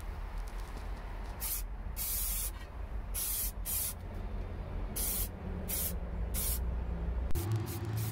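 Aerosol spray can of white primer paint being sprayed in short bursts: about eight separate hisses, each under a second long, with short gaps between.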